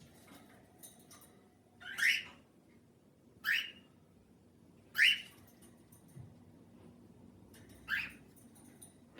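Cockatiel giving four short, loud calls spaced a second or more apart.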